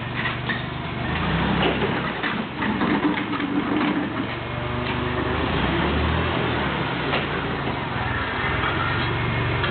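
A 1972 Clark IT50 forklift's propane-converted Continental four-cylinder flathead engine running steadily under load, with scattered knocks and rattles from the overhead door giving way, most of them in the first few seconds.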